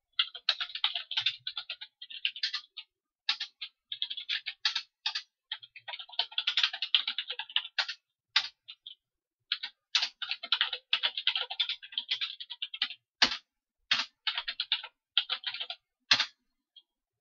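Typing on a computer keyboard: quick runs of keystrokes broken by short pauses, with a few sharper single key strikes among them.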